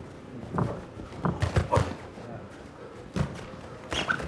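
Punches from boxing gloves landing during an exchange in the ring: a series of sharp thuds, a quick cluster of them about a second and a half in, and more near the end.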